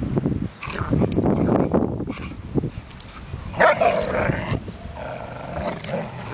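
Two German Shepherds growling as they tug a leash between them, with one louder bark about three and a half seconds in.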